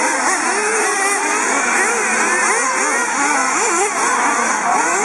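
Several 1/8-scale nitro RC buggies racing, their small two-stroke engines revving up and down over one another.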